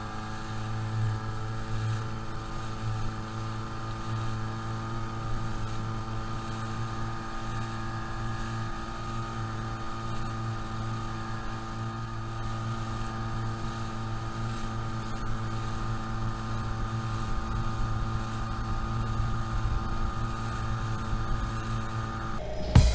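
Outboard motor on a small inflatable boat running at a steady planing speed while towing a waterskier: an even, unchanging engine drone. Music cuts in right at the end.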